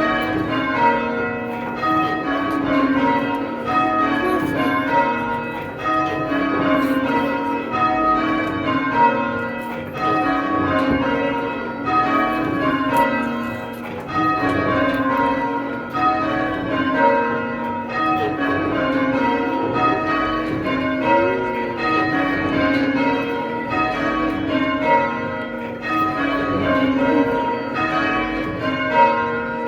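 Church tower bells rung full circle on ropes, striking one after another in steady repeating rows, about one row every two seconds.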